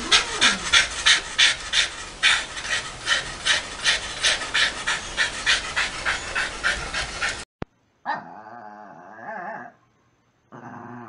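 Small spaniel panting fast and hard, about four breaths a second. After a sudden cut, a dog makes a drawn-out grumbling sound that wavers in pitch, breaks off, then starts again.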